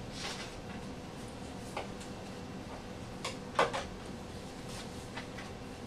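A few scattered small clicks and light knocks over a steady faint electrical hum, the loudest pair a little past halfway.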